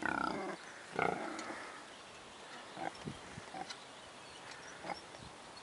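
Pig grunting: two loud grunts in the first second and a half, then a few shorter, softer grunts.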